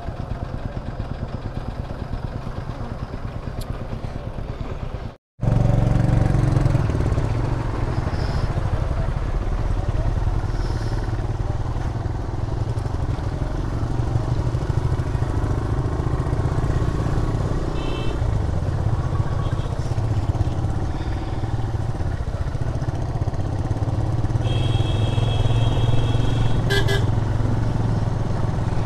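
Single-cylinder TVS Raider 125 motorcycle engine running steadily on the road. It cuts out for a moment about five seconds in and comes back louder. Vehicle horns sound briefly a few times in the second half.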